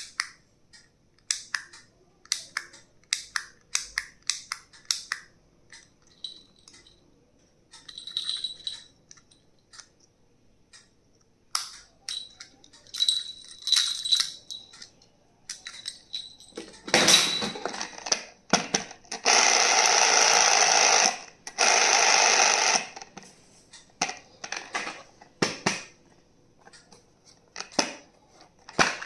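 Small stationery items being handled: a run of sharp clicks and taps, a few with a brief metallic ring, and, a little past the middle, two loud rasping noises of about two seconds each.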